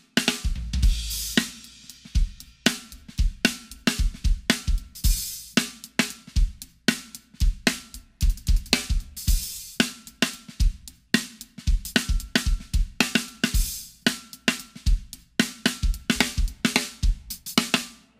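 Funk groove played on a drum kit: a very high-tuned Sonor AQ2 14x6 maple snare with its ring shortened by a gel damper, over kick drum and hi-hat.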